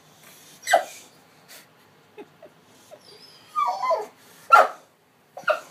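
A young boxer dog whimpering, with one falling whine of about half a second past the middle of the clip. Three short sharp sounds stand out, the loudest events in the clip, with a few small ticks between them.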